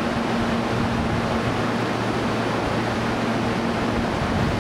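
A stopped Tobu 30000 series electric train idling at the platform: its roof air conditioning and on-board equipment give a steady hiss with a low hum.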